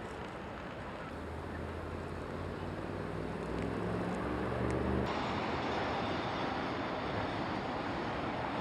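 Steady rumbling background noise with a low droning hum that starts about a second in and cuts off abruptly about five seconds in, where the sound changes as at an edit.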